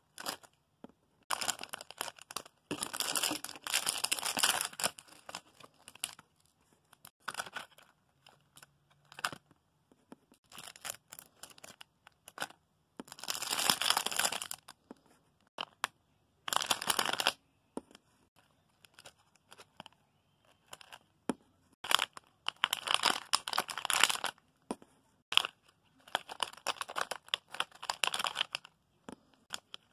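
Plastic packaging crinkling in irregular bursts of a second or two as packaged squishy toys are handled, with short quiet gaps between.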